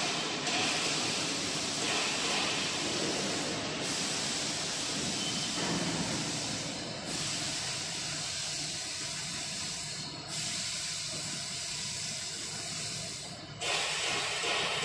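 Steady hissing background noise in a factory hall, changing in character a couple of times, with a faint high whistle through the middle stretch.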